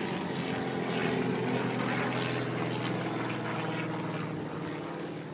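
Aerobatic propeller plane's piston engine running overhead with a steady note as it dives trailing smoke, fading slightly near the end.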